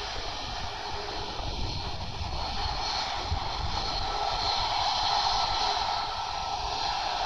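Boeing 737 MAX 8's CFM LEAP-1B jet engines running at take-off power: a steady rushing noise with a faint whine, swelling slightly about four seconds in.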